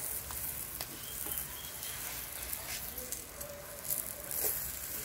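Stuffed parotta frying in butter on a hot iron tawa, sizzling steadily, with a few light clicks.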